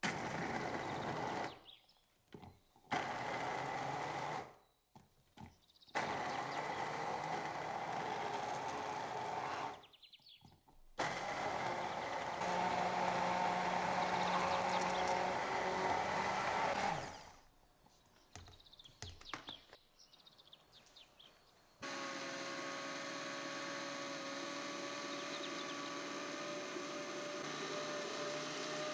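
Kenwood stick blender running in short bursts in its plastic beaker, grinding raisins into milk: two brief runs, then two longer ones of about four and six seconds, with pauses between. From about 22 seconds in, a different steady motor hum with a steady tone runs on: the countertop blender running.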